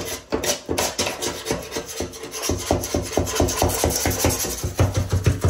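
Rapid, rhythmic scraping strokes of a blade scraper cutting hardened caulking (PL Premium adhesive under silicone) off a porcelain bathtub, the strokes growing stronger about halfway through. Light background music underneath.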